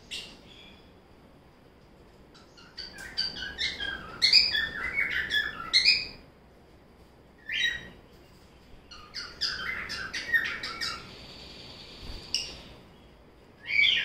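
Pet lovebirds chirping in bursts of quick, high calls: a busy run lasting about three seconds, then shorter bursts and single calls with pauses between.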